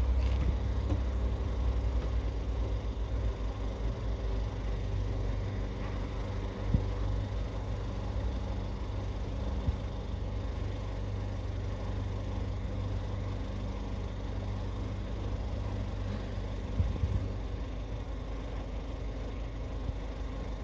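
Car engine idling with a steady low hum, slowly fading a little, with a few faint knocks.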